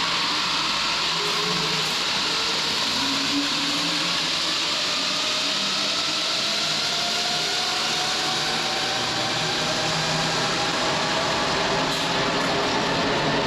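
A rubber-tyred Santiago Metro Line 2 train running through the station, its traction motors giving a steady whine over rolling noise, the whine slowly rising in pitch.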